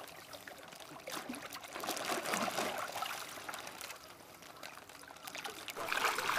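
Shallow pond water splashing and trickling as handlers wade and work a koi in a plastic bag, with a louder stretch of sloshing about two seconds in.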